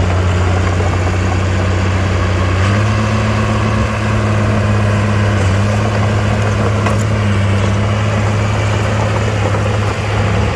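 Komatsu mini bulldozer's diesel engine running steadily; about three seconds in, its pitch steps up a little and holds there.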